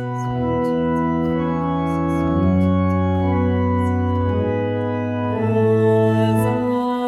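Organ playing an instrumental interlude: held chords that change every second or two over a moving bass line.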